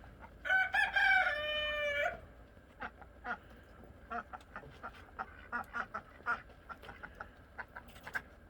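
A rooster crows once, a single call lasting about a second and a half that ends on a held, slightly lower note. Chickens then cluck in short, scattered notes.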